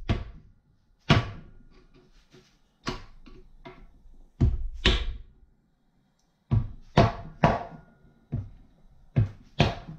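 A mallet striking a screwdriver driven into the RTV-sealed joint of a Kohler K301 engine's oil pan, to break the seal and pry the pan off. About ten sharp knocks, irregularly spaced, with a pause of about a second and a half in the middle.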